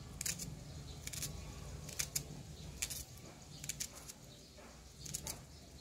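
A kitchen knife slicing through a raw onion held in the hand: short crisp cuts at irregular intervals, some in quick pairs.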